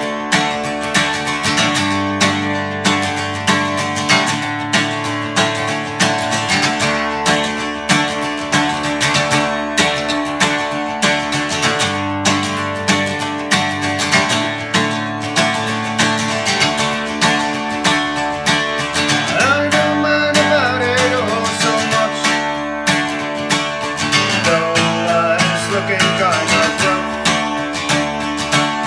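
Acoustic guitar strummed in a steady, even rhythm, chords ringing between strokes, as an instrumental break in a country-folk song.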